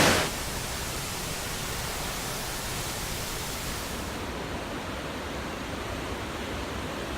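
Rushing water of the McKenzie River, a steady even rush. A much louder rush cuts off just after the start, leaving the softer one.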